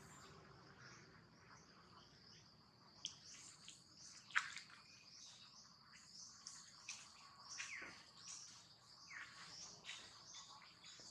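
Faint outdoor background of insects droning steadily, with birds chirping repeatedly and giving a few sharp calls that sweep downward.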